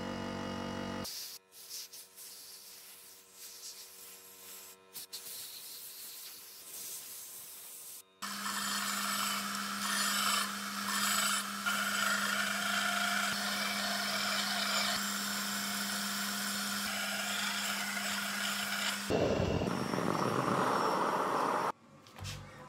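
Quieter scraping and rubbing with scattered clicks, then a belt sander running with a steady motor hum for about ten seconds as a steel ball-peen hammer head is ground against the belt. After that comes a few seconds of a different, rougher grinding noise.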